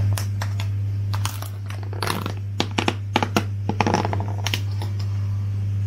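Lid of a clear plastic takeaway container being prised open: a run of sharp plastic clicks and crackles, thickest about two to four seconds in, over a steady low hum.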